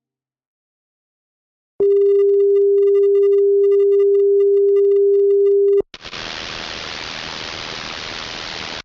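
A steady, pure electronic beep tone held for about four seconds and cut off sharply, followed by about three seconds of even static hiss, like the blank end of a recording.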